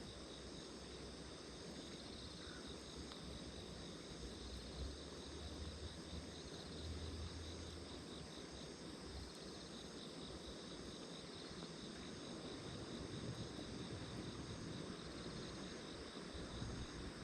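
Insects trilling steadily in a high, pulsing band, over an even hiss and a low rumble that swells now and then.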